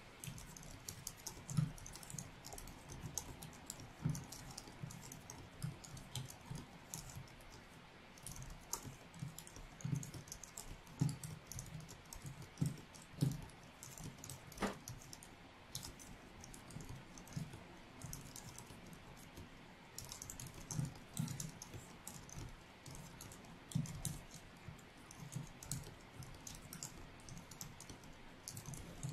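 Fast, continuous touch-typing on a Logitech MX Keys wireless keyboard: a quiet, uneven patter of low-profile scissor-switch key presses, several a second, with a few sharper key strikes standing out.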